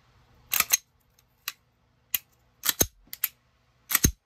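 Glock competition pistol fitted with a custom Johnny Glocks trigger being dry-fired and worked: a run of sharp metallic clicks from the trigger breaking and resetting and the slide being cycled, several in quick pairs, two with a dull thud.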